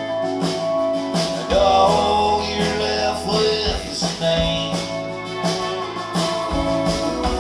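Live country-rock band playing an instrumental passage between sung lines: guitars, bass and drums, with some notes bending in pitch.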